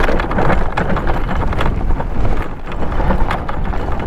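Daymak electric scooter-style e-bike riding over a rough gravel trail: the tyres crunch over loose stones and the bike rattles with rapid, irregular clatter over a steady low rumble.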